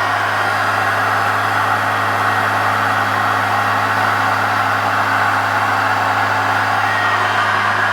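1985 Hoover Turbopower Junior U1102 vacuum cleaner running steadily, its motor giving a constant low hum under a strong rushing of air.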